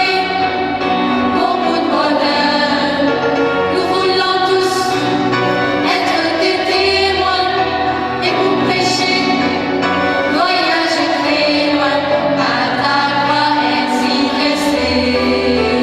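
Choir singing a hymn in parts with organ accompaniment, continuous throughout.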